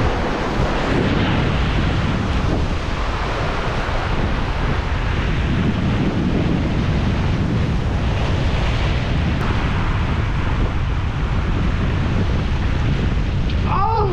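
Surf breaking and washing over a rocky shoreline, a steady rushing noise, with wind buffeting the microphone and adding a low rumble.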